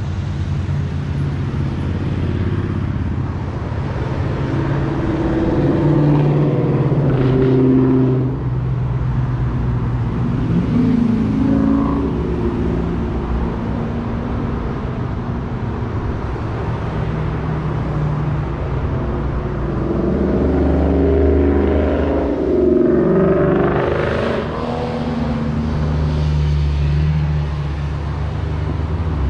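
Road traffic: engines of passing vehicles, their notes rising and falling as they go by, over a steady low rumble. The engine sound swells twice, about a quarter of the way in and again about three quarters of the way in.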